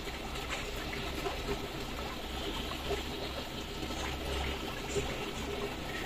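Water trickling steadily, with small drips and splashes dotted through it.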